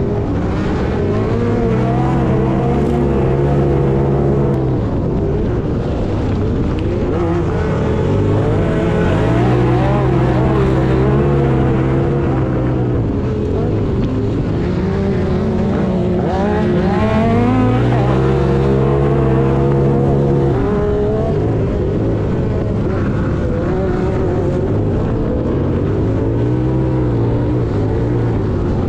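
Racing side-by-side UTV engine running hard, its pitch held high and steady for a few seconds at a time, then dropping and climbing again as the throttle comes off and back on. Heard from on board the vehicle.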